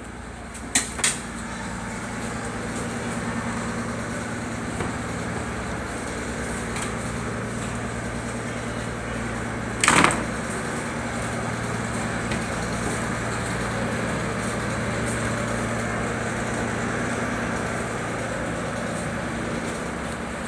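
Steady low mechanical hum, with two sharp clicks about a second in and a brief, louder knock near the middle as a wooden door with a metal handle is opened.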